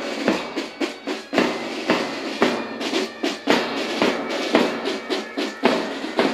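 March music with snare and bass drums beating a steady parade tempo, about two strong beats a second.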